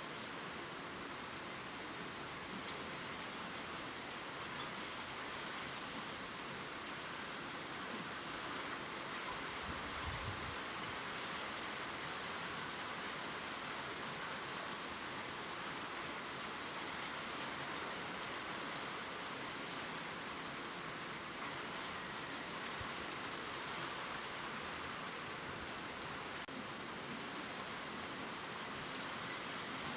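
Steady gentle rain falling on leaves, a constant patter with scattered drops ticking. About ten seconds in, a brief low rumble sounds under it.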